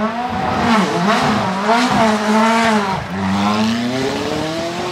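McLaren 650S GT3's 3.8-litre twin-turbo V8 revving hard and accelerating away under full throttle. The engine note climbs and falls back a few times, then rises steadily over the last couple of seconds.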